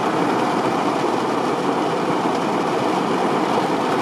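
Torrential rain drumming on a car's roof and windshield, heard from inside the cabin: a dense, steady, even noise of countless drops, a tremendous noise.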